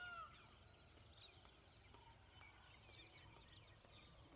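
Faint outdoor ambience: insects chirping in short high pulses repeated about once a second, scattered faint bird chirps, and one short rising-and-falling call right at the start.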